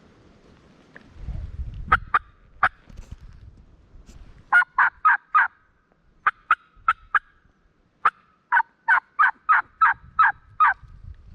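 Turkey call imitating a hen turkey: a few sharp single clucks, then three runs of evenly spaced yelps, the last about eight notes long, used to get a gobbler to answer.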